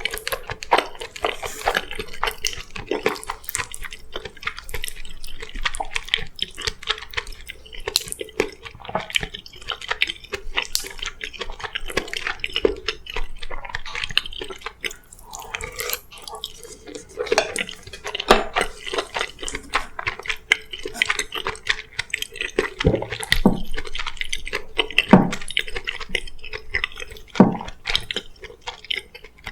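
Close-miked eating sounds: a spoon clicking and scraping against a bowl while scooping rice with curry and mapo tofu, with wet chewing and mouth sounds in between.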